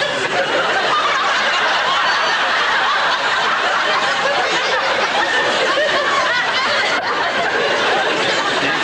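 Studio audience laughing continuously, a large crowd's laughter that holds at a steady level throughout.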